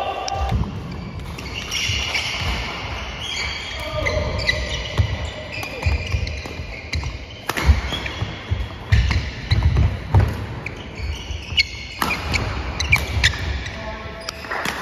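Badminton doubles rally on a wooden sports-hall floor: court shoes squeak repeatedly and footsteps thud, and from about halfway through come sharp racket strikes on the shuttlecock.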